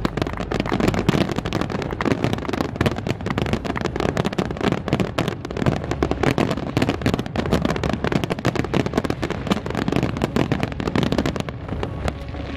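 Aerial fireworks going off in a rapid, continuous barrage: many shell bursts and launches overlapping with crackling, easing briefly about a second before the end.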